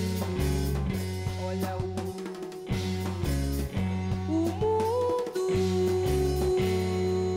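Band music with drum kit, bass and guitar, a short gliding melodic phrase in the middle, settling into a long held chord near the end.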